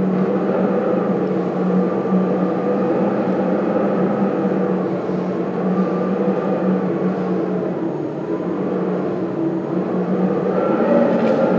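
Ominous ambient drone from a performance soundtrack: a steady, sustained low hum with higher tones held over it and no beat.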